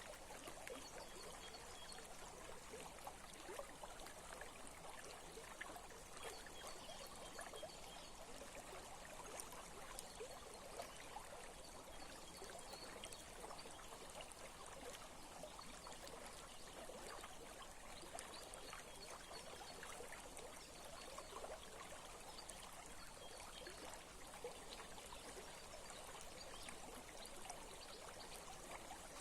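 Small stream trickling and babbling over stones, a faint, steady flow.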